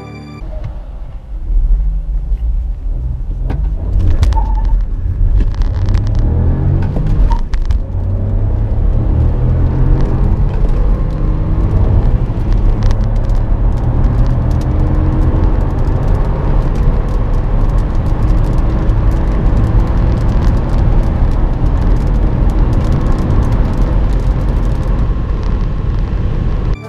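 Cabin sound of a small three-cylinder turbo petrol car, a Honda Civic 1.0 VTEC Turbo and a Ford Focus 1.0 EcoBoost, accelerating hard from a standstill. The engine note climbs and drops back at each gear change, then settles into a steady drone at high speed.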